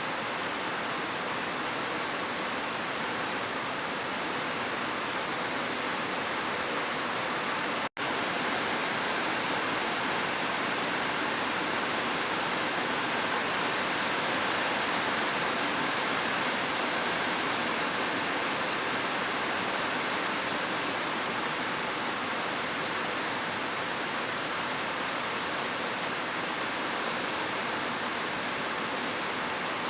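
Heavy rain falling in a steady, even hiss, with a split-second dropout to silence about eight seconds in.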